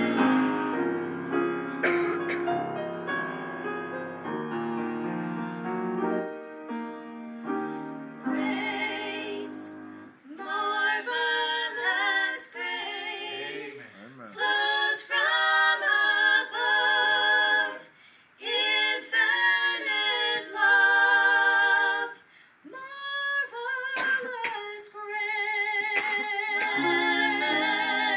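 Women singing a gospel song with instrumental accompaniment. Held chords open it; from about ten seconds in, sung phrases with strong vibrato come in short bursts between pauses, and it ends on long held notes.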